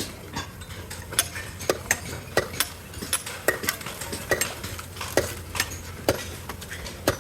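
Sharp clinks and knocks of hard objects, irregular at about one to two a second, over a steady low hum.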